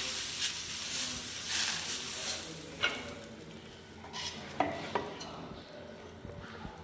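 Green moong dal dosa batter sizzling on a hot griddle while a ladle spreads it. The sizzle is strongest at first and fades, and the ladle clinks sharply against the pan about three seconds in and twice more near five seconds.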